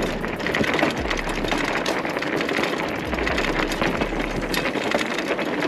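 A WaltX Dune 1 fat bike rolling fast over a rough dirt and gravel track: its wide tyres crunch over the ground under a constant fine rattling and creaking from the bike, which the rider puts down to the seat spring.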